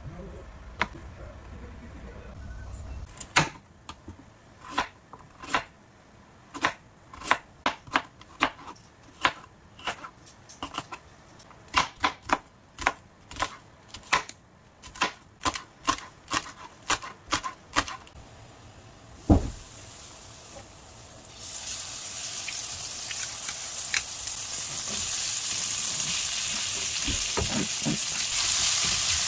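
Chef's knife slicing vegetables on a plastic cutting board, slow even strokes a little under two a second for about fifteen seconds. A single heavy thump follows, then mushrooms, carrots and onion sizzle as they stir-fry in a hot wok, the hiss growing louder toward the end.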